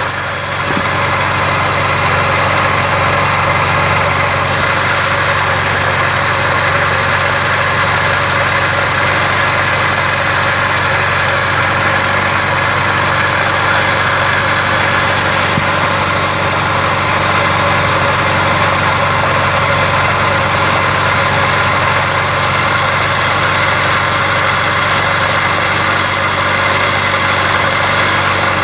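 Car engine idling steadily, with the electric radiator cooling fan running, a constant hum holding several steady tones.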